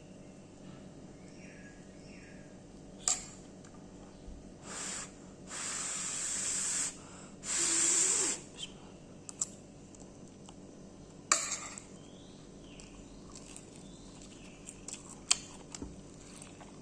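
Three short spraying hisses in a row, about four to eight seconds in, the last the loudest, with a few sharp clicks and knocks before and after.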